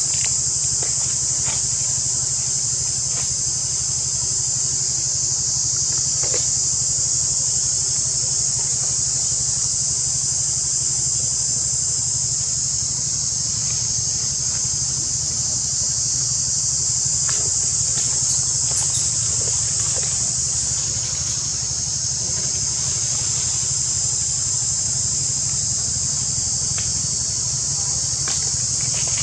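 Steady high-pitched drone of an insect chorus over a steady low rumble, with a few faint clicks.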